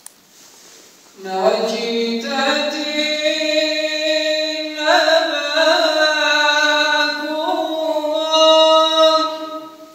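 Unaccompanied male voice singing an Albanian devotional song in long held, ornamented notes. It begins about a second in and fades out near the end.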